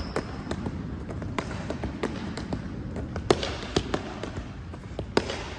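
A football being juggled: a steady run of short taps as the ball is kicked and kneed, about two touches a second, irregularly spaced, with two sharper hits in the second half.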